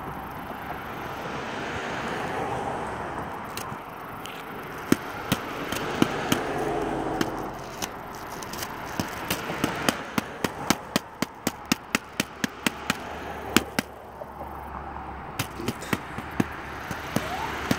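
Police cars passing slowly along the road, their tyre and engine noise swelling and fading. From about five seconds in, many sharp snaps cut in, at times two or three a second.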